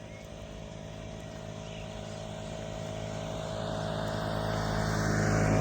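Small moped engine approaching, its buzz growing steadily louder as it nears.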